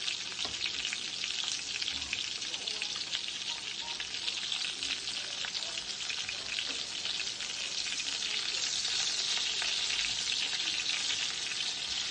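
Flour-dredged chicken pieces frying in olive oil in a skillet: a steady, dense sizzle full of fine crackling pops, a little louder about two-thirds of the way in, as tongs turn the pieces in the pan.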